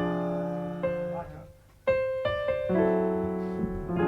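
Keyboard playing slow, held chords of a tune's intro, the chord changing about every second, with a short break and then a loud chord about two seconds in.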